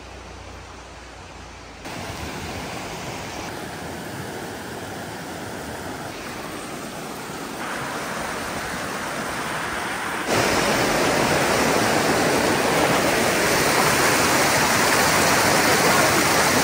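Steady rush of flowing creek water, getting louder in steps a few times, loudest in the last third.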